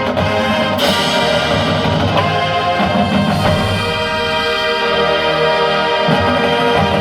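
High school band playing: sustained wind chords over drums and timpani, with a cymbal crash about a second in.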